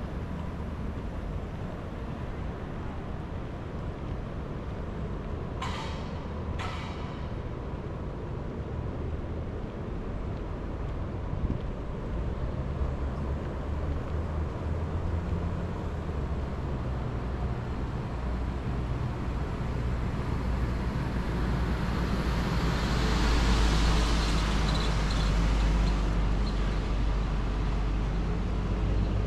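Road traffic: a steady low rumble of vehicles on the street, swelling into a louder engine-and-tyre rush as a bus passes close about three quarters of the way through, then easing. Two short sharp clicks about six seconds in.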